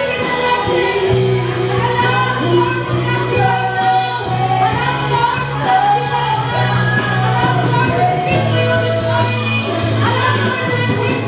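Live gospel worship music: women singing the melody together over a band of drums, electric bass and keyboard, with a steady bass line and cymbal strokes.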